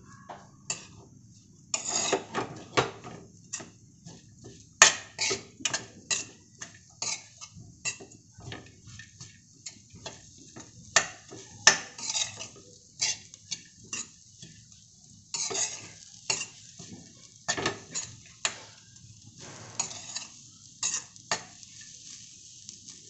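Steel ladle scraping and clinking against a steel kadhai, with many quick, uneven strokes a few times a second, as moist ground fresh coconut is stirred while it roasts. The constant stirring keeps the wet coconut from sticking to the bottom of the pan.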